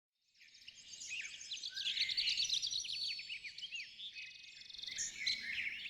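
Several small birds chirping and singing together, many quick up-and-down chirps at once, fading in over the first half second; a fast trill comes in a little after four seconds in.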